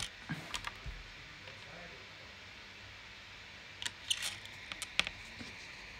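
Quiet room tone with a few soft, sharp clicks and taps: a handful just after the start and a small cluster around the four-to-five-second mark.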